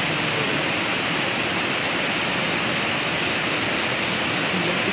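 Steady rushing of flowing river water, an even unbroken roar.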